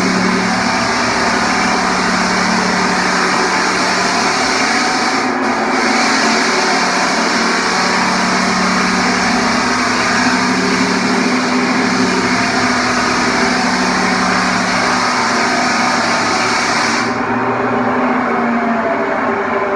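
Floor sander running steadily with its motor hum and a gritty sanding hiss. The high hiss drops out briefly about five seconds in and cuts off near the end, while the motor keeps running.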